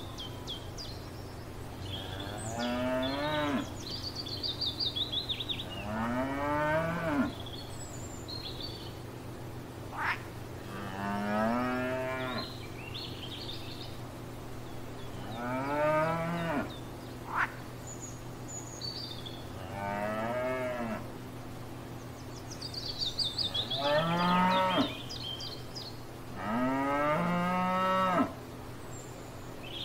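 Cattle mooing: about seven long, low moos a few seconds apart, each rising and then falling in pitch.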